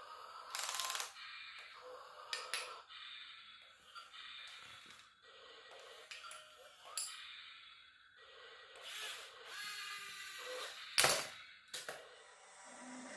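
Small electric gear motors of RC toy construction models whining in short spells, with plastic clicks and rattles, and a sharp knock about eleven seconds in.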